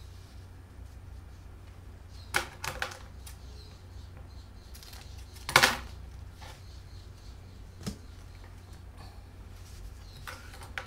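Fabric scissors snipping grosgrain bias tape into short pieces: a few short sharp snips, the loudest about halfway through.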